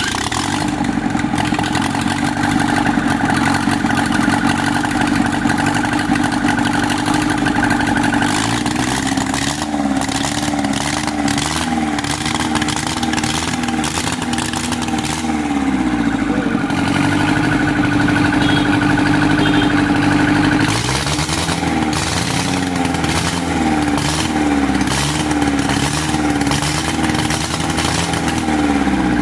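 A newly repaired engine running continuously, its speed dropping and rising again a few times.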